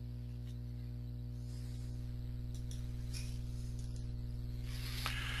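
Steady low electrical hum with a faint hiss, the background noise of a voice recording with no one speaking.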